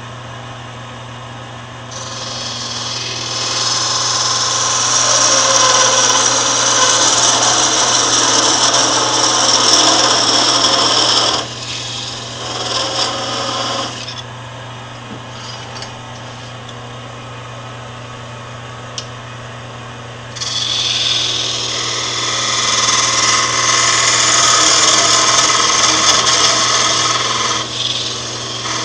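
Wood lathe humming steadily while a parting tool cuts into the spinning wooden handle blank, parting it off. There are two long spells of loud scraping, starting about two seconds in and again about twenty seconds in.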